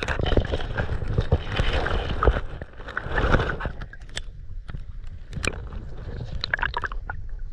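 Water sloshing and gurgling heard through a camera held underwater, with a deep rumble and many small knocks and taps on the housing, busier in the first half. The water is being stirred by a sea trout held in the shallows.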